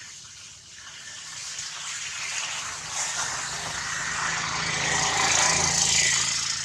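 A distant engine drone that grows steadily louder over several seconds, peaking near the end, like a motor passing by.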